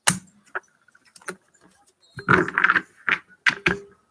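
Trading cards and foil pack wrappers being handled on a table: a sharp click at the start, a few light taps, then a flurry of rustling and clacks about two seconds in, with a few more clacks after it.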